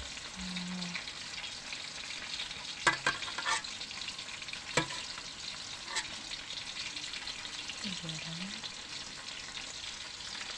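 Pieces of cassava frying in hot oil: a steady sizzle, broken by a few sharp clicks.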